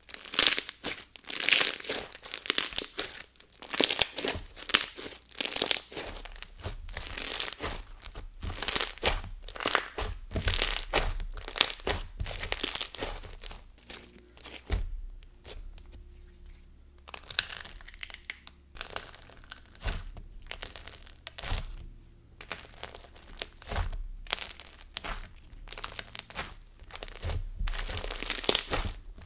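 White-glue floam slime packed with mixed-size foam beads being squeezed and stretched by hand, giving dense, irregular crackling pops: thick pops from the big beads and small crispy pops from the small ones. The popping eases off for a few seconds about halfway through, then picks up again.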